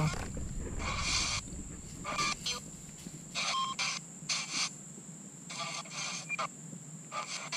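Ghost-box app on a tablet sweeping through choppy bursts of static and clipped sound fragments, roughly one every half to one second, over a faint steady high whine. Spirit-box output meant to catch spirit voices, which the investigator hears as lots of different voices.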